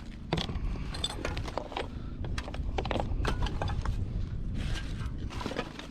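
Irregular knocks, clicks and clatter of junk being handled and shifted while rummaging through a pile of discarded household items, over a steady low rumble.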